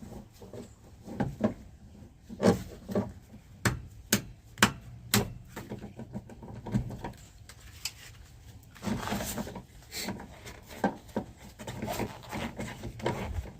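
Hand work tightening a fitting on a tractor's loader joystick cable: scattered clicks and knocks of a tool on metal parts, with a stretch of rubbing and scraping about nine seconds in.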